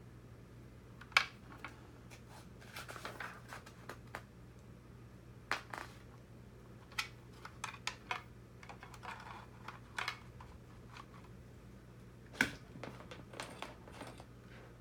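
Plastic parts and cables of a DJI RoboMaster S1 robot kit being handled during assembly: scattered light clicks and taps, with two louder knocks, one about a second in and one near the end.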